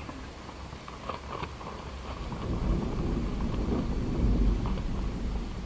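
Wind gusting over the microphone: a deep rumble that builds about halfway through. It comes with a few crackles of the tarp's fabric about a second in.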